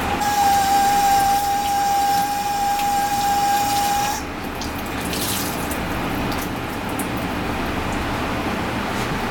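Kitchen water tap running into a stainless steel sink, the tap giving a steady whistling tone over the splash of water; the tap is shut off about four seconds in and the water and whistle stop.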